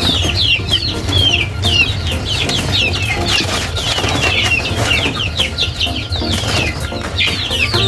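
A flock of young broiler chicks peeping together: a dense, continuous chorus of short, high, falling cheeps, over a low steady rumble.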